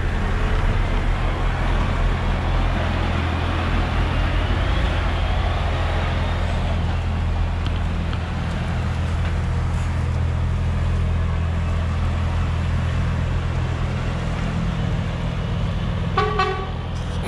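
Truck diesel engine idling steadily, with a short horn toot about sixteen seconds in.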